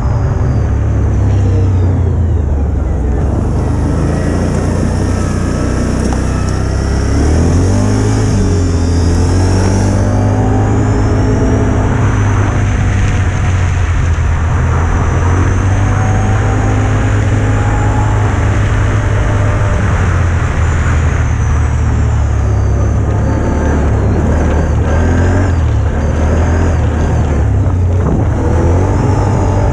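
ATV (quad bike) engine running as it is ridden along a rough dirt track. The revs rise and fall with the throttle, with a clear rise about a quarter of the way in.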